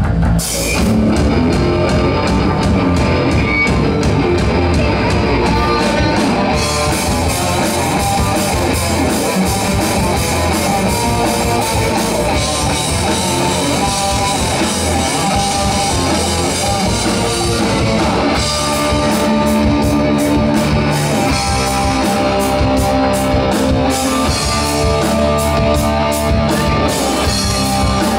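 Live hard rock band playing a heavy, metal-style instrumental passage on electric guitars, bass guitar and drum kit. The drumming changes pattern about six seconds in and again about two-thirds of the way through.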